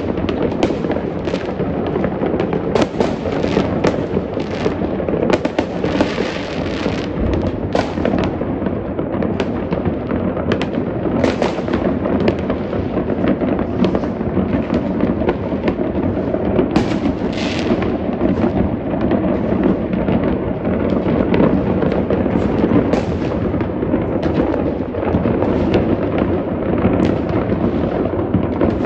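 Many fireworks and firecrackers going off at once, a dense, continuous barrage of overlapping bangs and crackles with no pause.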